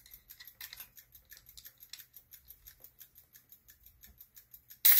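Clockwork mechanism of a 1940s–50s Park-O-Meter parking meter clicking rapidly and evenly, about five clicks a second, as a nickel drives the time-setting bar up. Near the end a sudden loud hiss cuts in.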